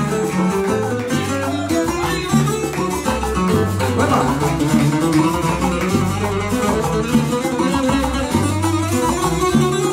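Puerto Rican cuatro and guitar playing the instrumental interlude of a seis mariandá: a busy plucked melody over low bass notes that change about once a second.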